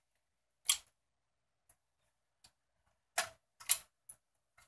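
A few sharp clicks of a small flathead screwdriver and plastic connector clips against the monitor's metal chassis as the backlight lamp cables are unplugged: one under a second in, then two close together about three seconds in and a faint one after.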